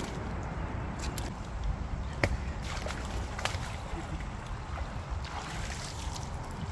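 Water sloshing and splashing at the lake edge over a steady low rumble, with a few sharp knocks and clicks; the loudest knock comes a little over two seconds in.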